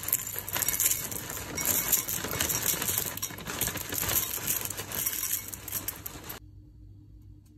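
Cornflakes poured from a plastic bag into a porcelain bowl: a dense rattle of dry flakes landing on the bowl and each other, mixed with the crinkle of the bag, stopping abruptly near the end.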